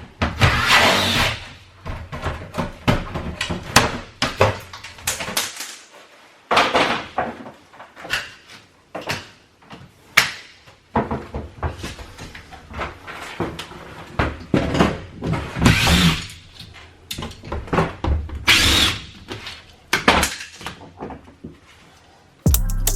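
Irregular clatter of hand-tool work on a wall panel being taken out: knocks, clicks and scraping at uneven intervals. Background music comes in near the end.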